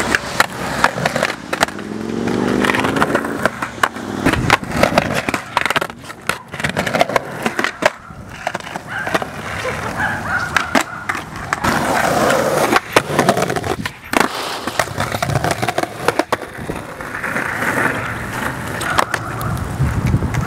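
Skateboards rolling on wet pavement, the wheels running with a steady gritty noise, broken by repeated sharp clacks of boards popping and landing during flatground tricks.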